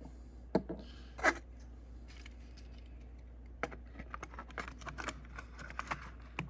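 Body shell of a model locomotive being handled and clipped onto its chassis: a few sharp clicks and taps, the loudest about a second in, then a run of small clicks in the second half.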